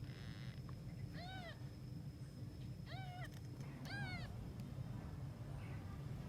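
Newborn kittens mewing three times, short high cries that rise and fall in pitch: the hungry calls of day-old kittens whose mother is away.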